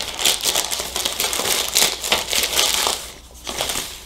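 Clear plastic parts bags crinkling as they are handled. The crinkling is dense and irregular, then dies down about three seconds in.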